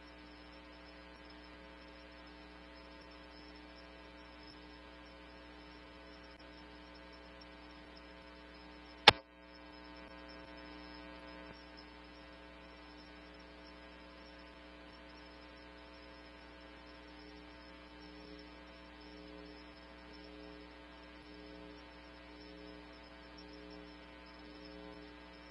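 Low, steady electrical hum on a police scanner audio feed in a gap between radio transmissions, with a single sharp click about nine seconds in.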